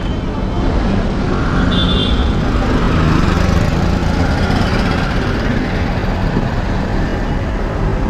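Motorcycle engine running under the rider, with steady wind rumble on the onboard microphone and a brief high tone about two seconds in.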